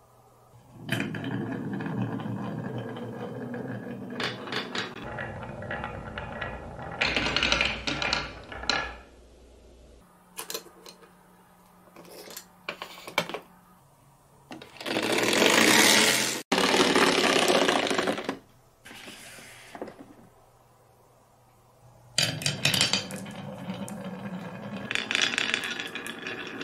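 Marbles rolling and clattering along a wavy-grooved wooden marble-run track, with clicks as they knock against the wood and each other. The sound comes in several runs separated by quieter gaps, with the loudest rush about halfway through.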